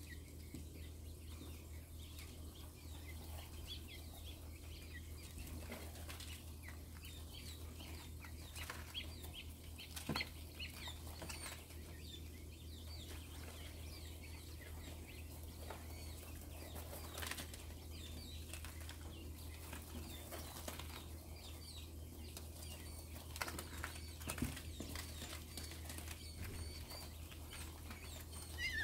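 White king quail (mini quail) scratching, pecking and shuffling in dry rice-husk bedding in a plastic tub, giving scattered faint clicks and rustles, a few sharper knocks and occasional faint high peeps. A steady low hum lies underneath.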